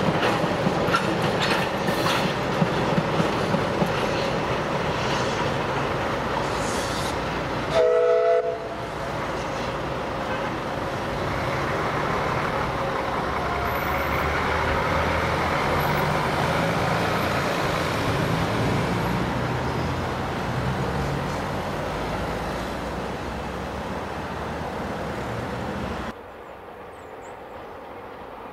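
Narrow-gauge steam train of empty wagons rolling away over the rail joints with rapid clicking, sounding a short whistle about eight seconds in, then running on steadily as it pulls away. Near the end the sound drops suddenly to a quieter background.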